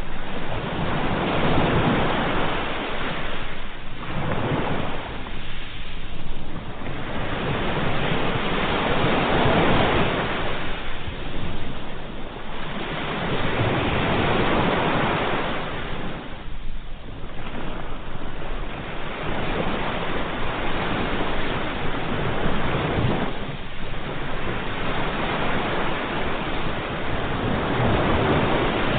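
Sea waves breaking and washing on a shore, a steady rush of surf that swells and ebbs every few seconds.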